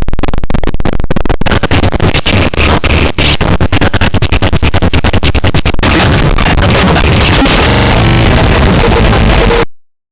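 Very loud, heavily distorted cacophony of music and noise, rapidly stuttering for about six seconds, then a steadier harsh buzz that cuts off suddenly near the end.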